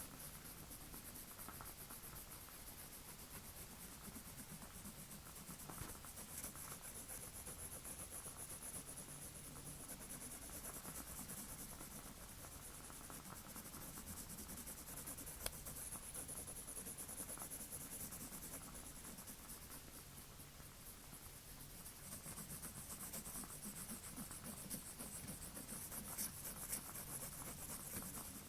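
Drawing strokes scratching on paper, a steady run of fine quick scrapes, with one sharp click about fifteen seconds in.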